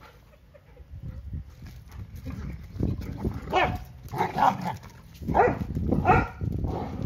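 Two dogs at play, an adult Australian Shepherd and a puppy, giving four short, loud play barks or growls in the second half over lower rumbling and scuffling.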